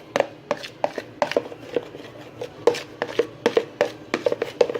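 Spoon stirring a thick, sticky slime mixture of flour, dish soap and oil in a bowl, clicking and knocking against the bowl several times a second at an uneven pace.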